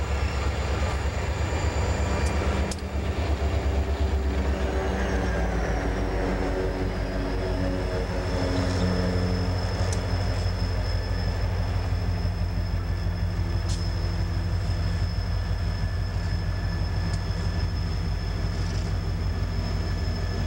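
Diesel freight train passing close by: the heavy rumble of the locomotives and wheels rolling on the rails. The diesel engine drone slides down in pitch a few seconds in as the locomotives go by.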